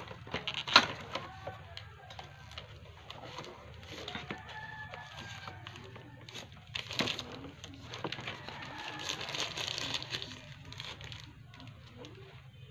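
Packaging being handled: a cardboard box cut open, with a sharp snap about a second in, then plastic bags crinkling and rustling as a hair clipper, its cord and accessories are unwrapped. A bird calls faintly in the background.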